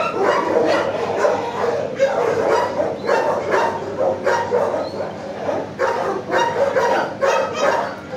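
Kennel dogs barking without pause, many barks overlapping several times a second.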